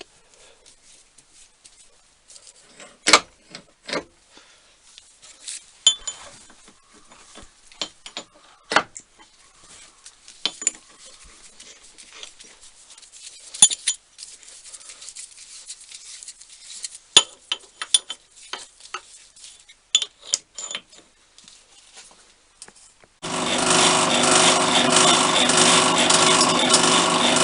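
Scattered clicks and knocks of metal tools and parts being handled and set up. About 23 seconds in, an electric machine motor starts and runs steadily, driving a drill bit.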